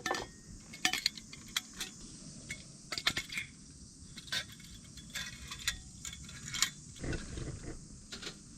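Scattered light metallic clinks and taps of cookware or utensils being handled, over a faint steady hiss.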